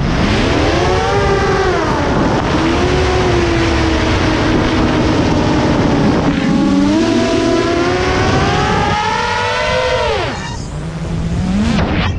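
FPV drone's motors and propellers whining under a 1.5 kg dummy camera load, the pitch rising and falling with the throttle. It climbs and falls about a second in, holds steady, rises again around the middle, then drops with a short dip in loudness before climbing again near the end.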